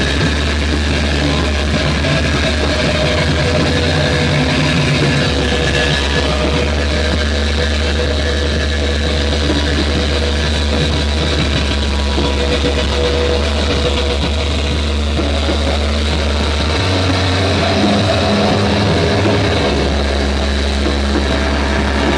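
Electric guitar and band playing live: a loud, dense, droning wall of sound with long held low notes that shift every few seconds.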